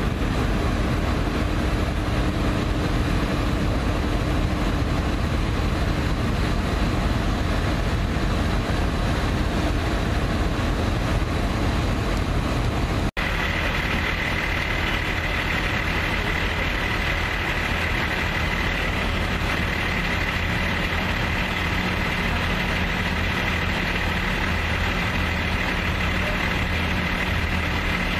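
Fire trucks' diesel engines running steadily, as pumpers supplying charged hoses and an aerial ladder's water stream. After a brief break about halfway through, a steady high whine joins the engine noise.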